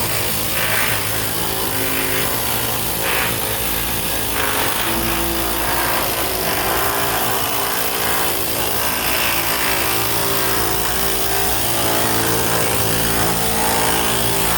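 Pneumatic air hammer working sheet-metal ductwork, running continuously with a steady, loud buzzing rattle that cuts off at the very end.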